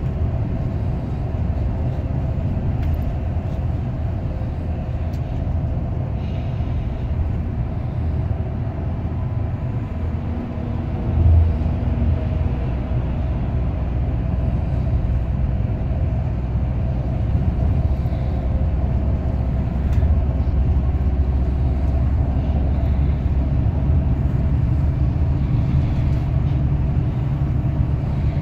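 Steady low engine and road rumble of a moving bus, with a brief thump about eleven seconds in.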